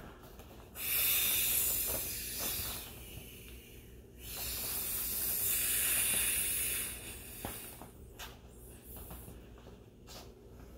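Breath blown by mouth through the nozzle of an inflatable vinyl clownfish toy to top it up with air: two long hisses of air, each about two to three seconds, the first starting about a second in and the second about four seconds in.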